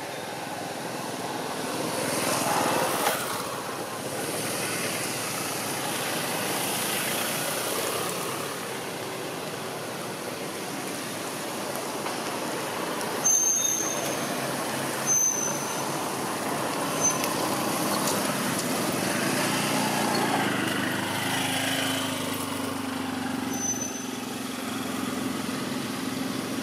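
Road traffic passing: a steady rush of vehicle noise that swells and fades, with an engine drone in the last few seconds and a few short high chirps in the middle.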